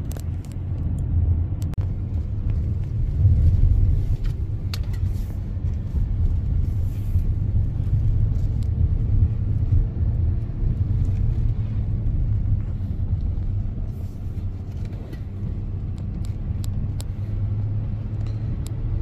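Steady low rumble of engine and tyre noise heard inside the cab of a 2024 GMC Duramax diesel pickup cruising on a wet road, with scattered faint ticks and clicks over it.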